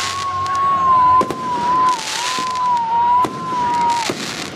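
Fireworks going off: a single whistle near 1 kHz holds for about four seconds, wavering slightly, then stops abruptly. Over it come several sharp bangs and two hissing bursts from the shells.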